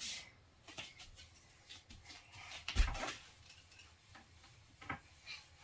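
Light clicks and knocks from a child moving on an aerial yoga hammock, with one dull thump about three seconds in.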